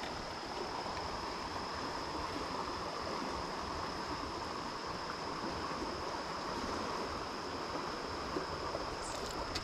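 A shallow river flowing steadily over a riffle, a soft, even rush of water. A thin, steady high-pitched tone sits over it.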